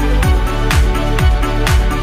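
Electronic background music with a steady kick drum about twice a second and a sharp clap or snare on every second beat, over sustained synth notes.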